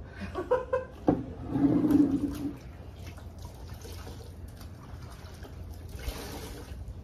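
Water sloshing and splashing in a plastic bucket as a wet cleaning rag is dunked and rinsed, loudest about a second and a half in. Near the end, water wrung from the rag pours back into the bucket.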